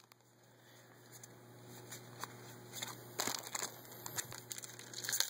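Trading-card pack wrappers crinkling and cards being handled, a few short crackles from about three seconds in and again near the end.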